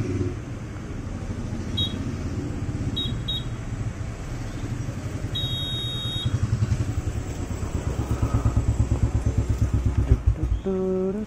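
Digital tyre inflator's keypad beeping as its set pressure is stepped up: a short beep, a quick pair of beeps, then a longer beep about six seconds in. Under it a low rumble runs throughout, turning to a stronger pulsing throb in the last few seconds.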